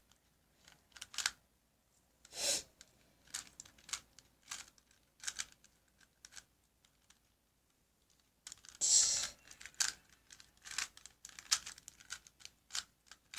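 Plastic Rubik's cube being turned by hand: an irregular run of sharp clicks and clacks, with two longer rattling turns about two and a half and nine seconds in.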